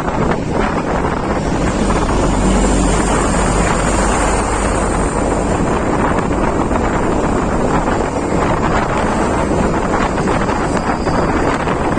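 Wind buffeting the microphone while travelling on the road, a steady loud rush over a low vehicle and road rumble.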